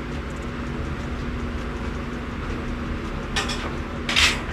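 A steady hum with one constant low tone, and two short scraping or rustling noises about three and four seconds in as things are handled at a metal tool chest.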